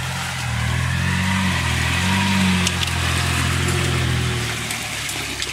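Off-road SUV engine revving under load as the vehicle pushes through deep mud on oversized mud tyres, the tyres churning the sludge. The engine note rises about a second in, holds, and eases off near the end.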